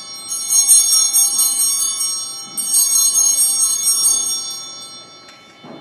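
Altar bells (Sanctus bells) shaken at the elevation of the chalice: two bursts of bright jingling ringing, the second dying away about five seconds in. A soft knock follows near the end.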